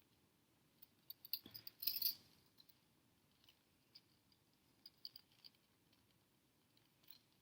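Faint small clicks and clinks of jewelry pliers, wire and beads being handled while a wire loop is wrapped, with a quick cluster about one to two seconds in and a few scattered ticks after.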